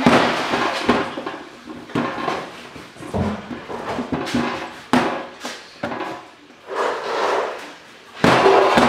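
Irregular knocks, bangs and scraping from bread-making work at a stainless-steel table, with a louder scraping stretch near the end.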